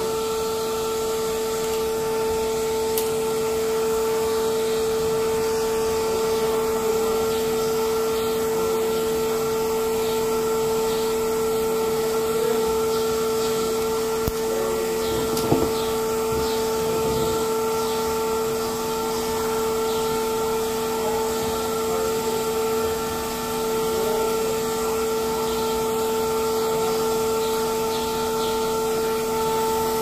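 Vacuum cleaner running with a steady whine, its hose nozzle worked over foam air-filter pads. A brief knock about halfway through.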